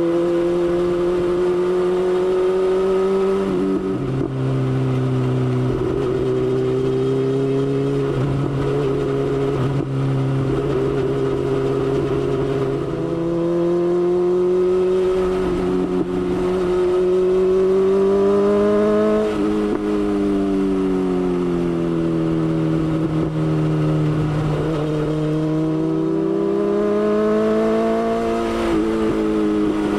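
BMW S1000XR's inline-four engine running under way. Its note drops suddenly about four seconds in, then rises and falls several times as the throttle is opened and closed.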